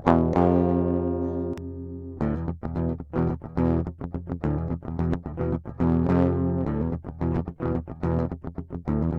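1978 Greco PS-800 Flying V electric guitar played clean through an amp with no pedals: a chord rings out for about two seconds, then, after a brief pause near the switch from the treble to the rhythm pickup, a riff of quickly picked notes starts.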